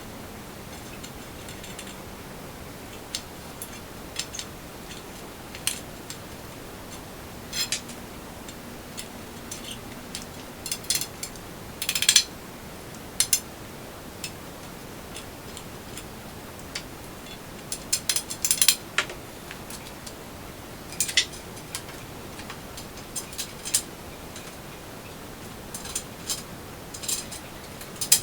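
Scattered sharp metallic clicks and clinks, singly and in short clusters, from metal tools and parts being handled. They come over a steady faint hiss.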